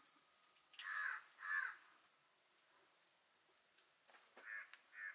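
A crow cawing: two harsh caws about a second in, then two more near the end.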